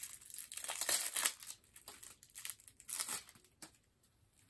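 Plastic shrink-wrap crinkling and tearing as it is picked and peeled off a boxed deck of cards, in bursts of rustling through the first second or so and again around three seconds in.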